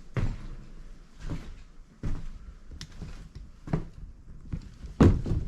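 A series of dull thumps and knocks, roughly one a second, the loudest near the end.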